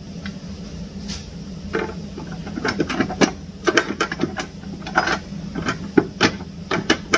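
A metal suspension bracket clanking and scraping against a car's chassis rail as it is worked into place by hand. It makes a run of irregular clicks and knocks over a steady low hum.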